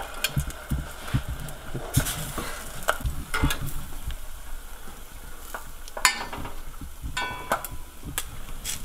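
Hot vegetable oil sizzling in a stainless steel pot as pieces of egg-dipped fish are lifted out with a metal spoon, with scattered sharp clinks and taps now and then.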